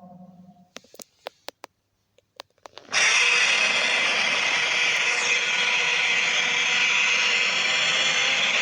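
The end of one Godzilla roar sound effect fades out, then a few sharp clicks. About three seconds in, a loud, harsh, hissy Godzilla roar starts suddenly and holds steady.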